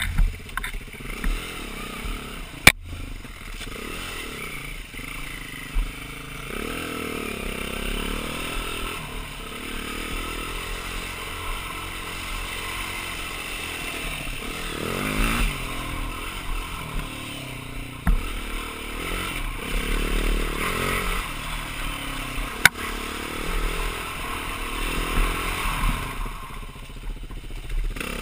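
A BMW G450X's single-cylinder four-stroke engine on a dual-sport ride, its revs rising and falling again and again as the throttle is worked. There are two sharp knocks, one a few seconds in and another late on.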